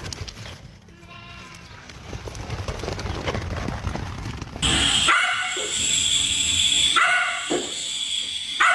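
A dog vocalising in high-pitched calls: a faint one about a second in, then loud calls from about halfway through.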